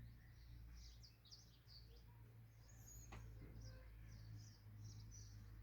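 Small birds chirping faintly: a quick run of short, high-pitched chirps over a steady low hum, with one sharp click about three seconds in.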